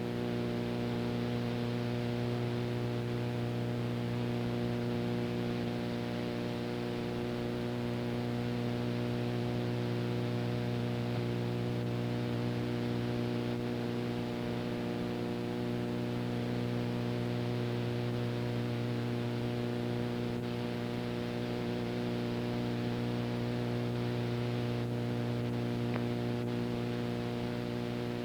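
Steady electrical mains hum, a buzz with many even overtones, over a constant tape hiss; it does not change throughout.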